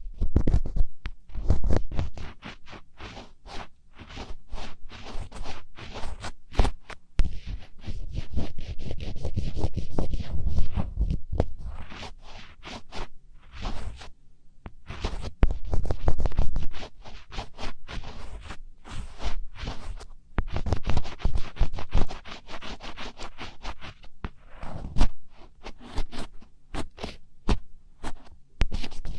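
Close-miked ASMR scratching: crisp, rapid scratching strokes in dense runs, with a few short pauses.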